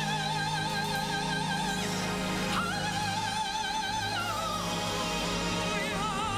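A woman's solo voice singing long, high held notes with a wide vibrato, sliding up into a new note about two and a half seconds in and stepping down again shortly after, over sustained low accompaniment chords.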